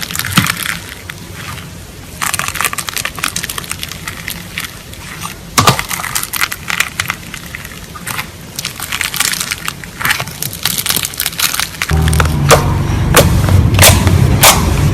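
Slime being squeezed and pressed, giving quick irregular crackling and popping clicks, one sharper crack near the middle, over background music whose bass grows louder near the end.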